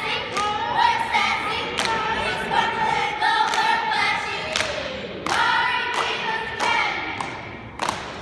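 A cheerleading squad chanting a cheer together in held, sing-song phrases, punctuated by sharp thuds every second or so.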